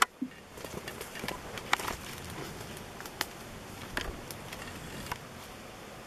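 Fir branch and dry brush rustling and crackling as a swarm-laden branch is handled over a wooden box, with scattered sharp twig snaps and clicks.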